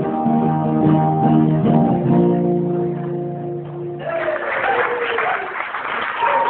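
Acoustic guitar strumming the last chords of a song, which ring out. About four seconds in, the audience breaks into applause, with a whoop among the clapping.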